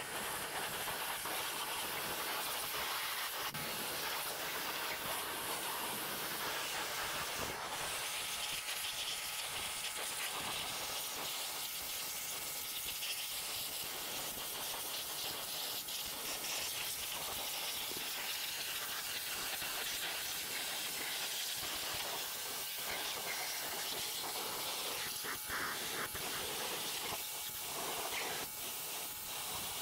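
Pressure washer gun spraying a high-pressure water jet onto a motorcycle and the dirt beneath it, a steady hiss of spray.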